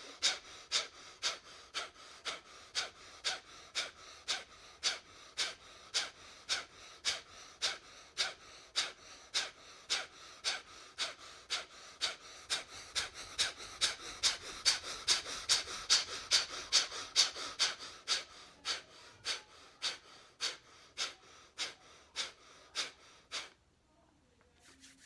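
Forceful rhythmic breaths of bhastrika (bellows breathing) in Sudarshan Kriya, each a sharp loud breath, about two a second. They slow over the last few seconds and stop about a second and a half before the end.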